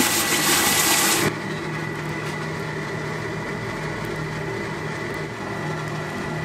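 Red-hot steel anvil just quenched in a barrel of water, the water boiling and hissing loudly. About a second in this cuts off abruptly to a coal forge's steady hum with a faint high whine, the anvil back in the fire to draw its temper.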